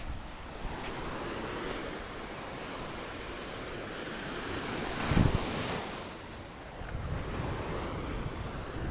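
Sea surf washing up onto a sandy beach in a steady hiss, with wind on the microphone; a short, louder low buffet hits the microphone about five seconds in.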